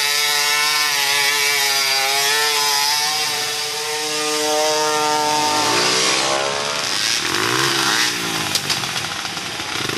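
Off-road racing engines: one runs at steady high revs, then from about six seconds in several engine notes rise and fall in pitch as machines rev and pass, with a few sharp ticks near the end.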